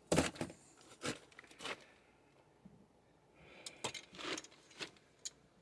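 Metal clinks and short scrapes of channel-lock pliers and a wrench being set on a water meter and its coupling nut. The sounds come in a few short separate bursts, with a quiet stretch in the middle.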